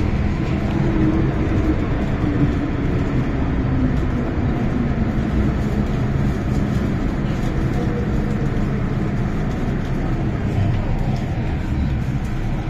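Hong Kong MTR M-Train heard from inside the car as it runs into the station: a steady rumble of wheels and running gear. A faint motor whine falls slowly in pitch over the first half as the train brakes.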